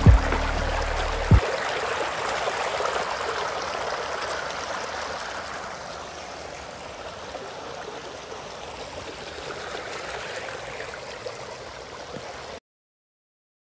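A stream of rushing water, a steady hiss that slowly grows fainter and then cuts off abruptly near the end. The tail of background music fades out in the first second or so.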